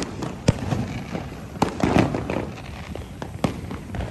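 Consumer fireworks going off: a string of sharp, irregular bangs and pops, a dozen or so in four seconds, some close together.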